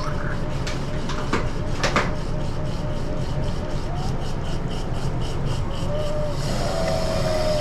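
Small electric water pump running with a steady hum, with a few clicks of handling early on; about six seconds in, the rush of water gets louder as the flow through the sluice picks up.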